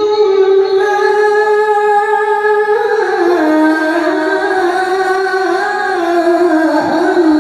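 A male qori's voice in melodic Quran recitation, amplified through a microphone: one long high phrase held on a note, then stepping down in pitch about three seconds in and holding again with ornamented turns.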